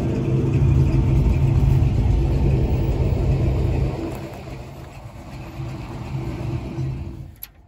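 Car engine running with a deep rumble, loud for about four seconds, then weaker, and cutting off suddenly near the end.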